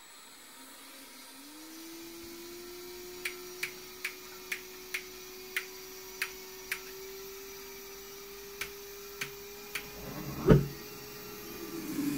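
AMT Pegasus model jet turbine being spun up for a start: a motor whine rises about a second and a half in and then holds steady. About a dozen sharp clicks come at uneven spacing. Near the end there is a single loud pop.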